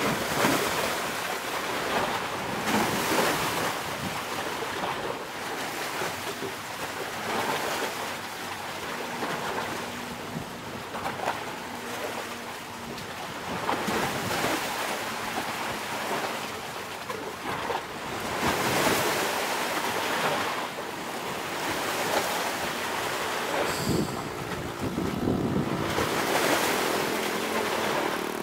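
Wind buffeting the microphone over surf washing on the shore, rising and falling in swells. An engine hum joins near the end.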